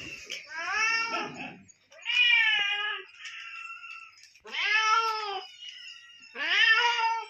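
Hungry cats meowing for food. There are four loud, drawn-out meows about two seconds apart, with fainter, shorter meows in between.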